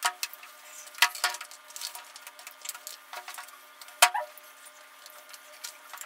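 Metal forks clinking and tapping against dishes and foil trays while eating, with scattered short ringing clinks, the loudest about a second in and about four seconds in.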